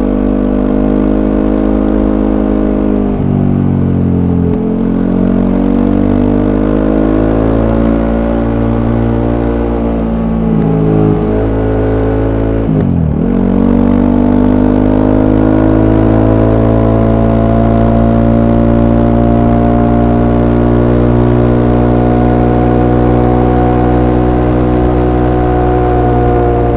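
Voge 300 Rally's single-cylinder engine through its stock exhaust, heard on board while riding. The engine note drops and climbs back several times, most sharply about halfway through, then holds a long steady pull with the pitch slowly rising.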